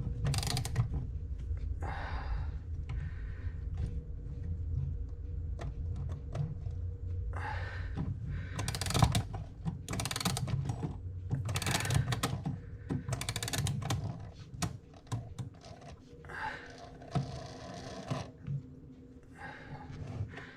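Hands working on a mechanical clock movement and its parts: irregular clicks, taps and short scraping rustles of metal, coming in bunches every second or two.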